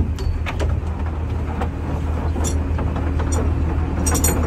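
Boat engine running steadily with a low hum, under a few sharp clicks and knocks from fishing gear handled on deck, with a cluster of ringing clinks near the end.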